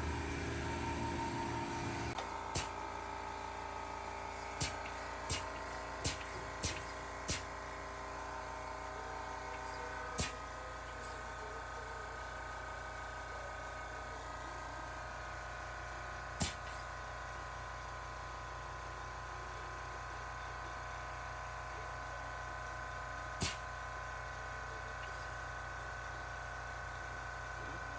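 Sharp single knocks: one, then five in quick succession, then single ones several seconds apart. Under them is a steady background of held tones that change pitch a couple of times.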